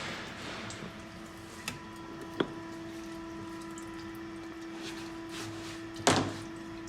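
A few light clicks, then a louder knock about six seconds in, over a steady hum: metal gearbox parts being handled on a workbench.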